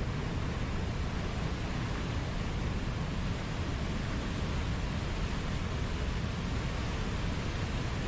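Mountain waterfall rushing: a steady, unbroken roar of falling water, heaviest in the low end.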